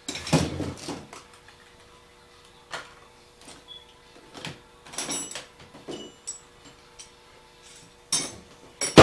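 Hand tools and metal parts clanking while working on a moped: irregular knocks and clinks, some with a short metallic ring, loudest just after the start and again near the end.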